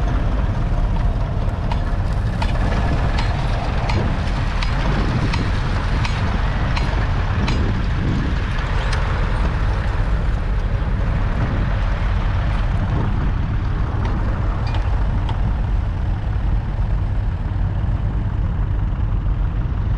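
1952 Ferguson TED-20's 2.1-litre four-cylinder petrol/TVO engine running steadily under load as the tractor pulls a two-furrow mounted plough, with occasional light ticks over the engine note.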